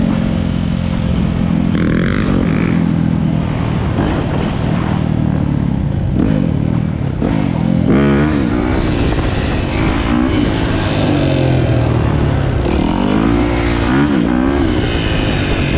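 Dirt bike engine running while being ridden, its revs rising and falling repeatedly as the throttle is worked, with a constant low rush of wind on the microphone.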